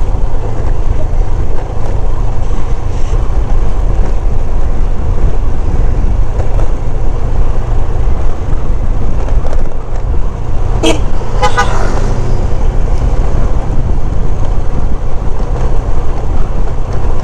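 Motorcycle riding downhill, its engine running under heavy wind rumble on the handlebar-mounted camera's microphone. A brief horn honk sounds about eleven seconds in.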